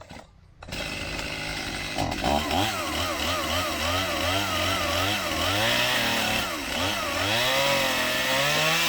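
Chainsaw starting up about a second in, then cutting into a limb under load, its engine pitch rising and falling as the chain bites.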